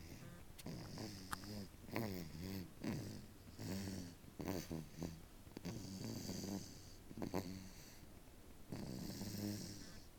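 A six-month-old baby snoring in his sleep: a string of short snores whose pitch bends, coming unevenly at roughly one a second.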